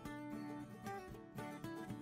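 Quiet background music, a plucked guitar melody.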